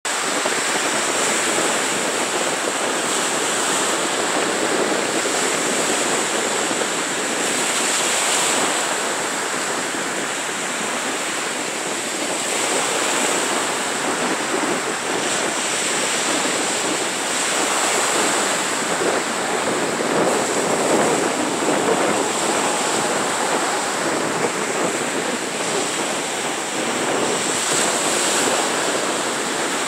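Gentle surf: small waves breaking and washing up a sandy beach. A steady rush rises and eases every few seconds.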